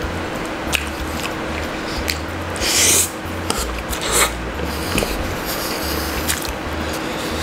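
Close-miked eating sounds: pancit noodles slurped and chewed, with short wet clicks and smacks of the mouth throughout. A longer hissing slurp comes about three seconds in, and a shorter one about a second later.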